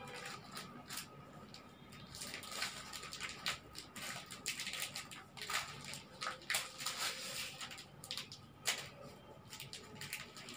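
Packaging of a watercolour paint set crinkling and rustling in quick, irregular crackles as a child's hands work at a packet that is hard to open.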